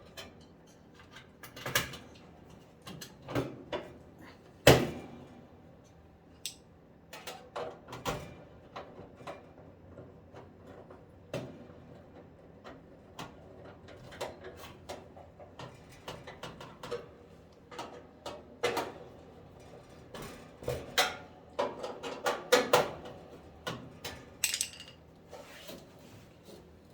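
Hands working on a dryer's metal cabinet and parts: irregular clicks, knocks and clatter, the loudest knock about five seconds in.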